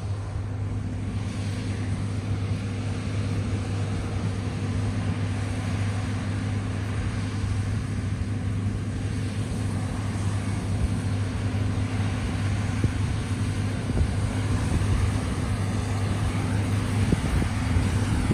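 John Deere S-series combine harvester running steadily, a continuous engine drone with a low hum.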